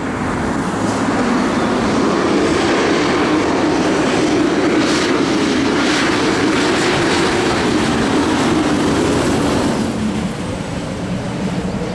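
Fire engine driving past on an emergency response, its engine and warning devices sounding loudly and continuously, easing off about ten seconds in as it moves away.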